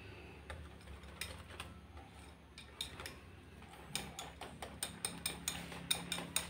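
Wire whisk clicking and scraping against a glass bowl as thick batter is beaten smooth. The clicks are faint at first, then grow louder and more frequent about four seconds in, roughly three a second.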